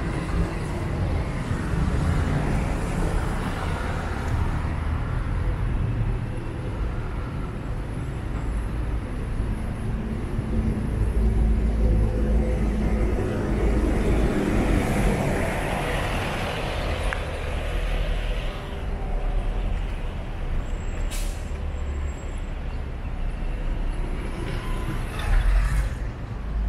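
Low, steady rumble of large vehicles running, with a hiss that swells and fades in the middle and a single sharp click near the end.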